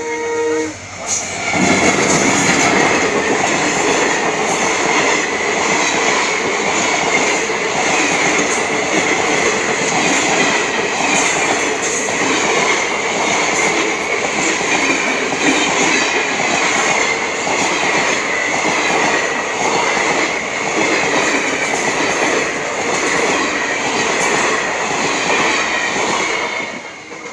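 A train passing close by. A horn cuts off about half a second in, then the loud rush and clatter of the wheels over the rail joints, with a steady high whine, runs until it fades away near the end.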